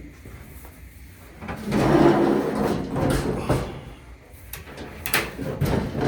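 Dryer parts being handled during reassembly: a rough scraping or sliding rub for about two seconds, then several sharp knocks and clicks as a part is fitted back into place.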